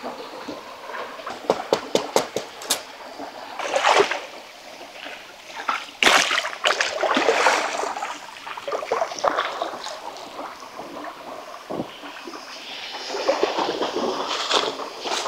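Water splashing and pouring off a waterlogged log as it is hauled out of a shallow stream, then feet splashing through the water. A quick run of sharp clicks comes early on, before the water sounds.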